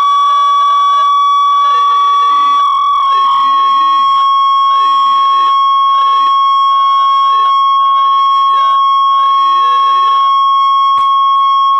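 Loud, steady high-pitched tone played through a loudspeaker, with a wavering, alarm-like wail rising and falling about once a second over it.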